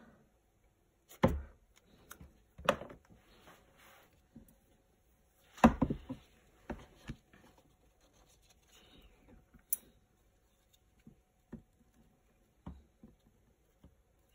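Handling sounds: metal tweezers knocking and tapping against a small plastic vial and thin plastic tub, with a paper towel being rubbed and unwrapped. Several sharp knocks come in the first seven seconds, the loudest about halfway through, then fainter scattered ticks.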